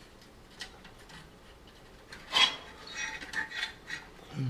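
Metal parts of a clothes dryer's heating element assembly being handled and worked loose: one sharp scrape about halfway through, then several lighter clicks and rattles.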